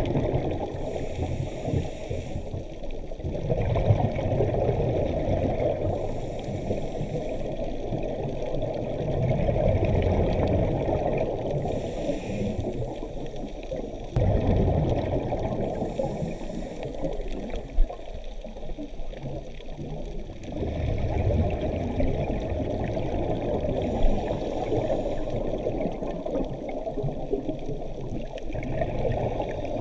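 Scuba regulator breathing heard underwater: bubbly, gurgling exhalations, with a brief hiss every few seconds.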